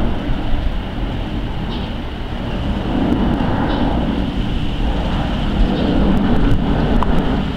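Jet engines of an Airbus A380 passing overhead: a steady low rumble that swells a few seconds in.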